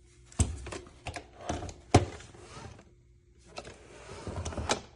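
Sharp plastic clicks and knocks from handling a robot vacuum-mop and its mop pads at the docking station: about five in the first two seconds, then more near the end. Underneath, a faint steady hum stops about three and a half seconds in.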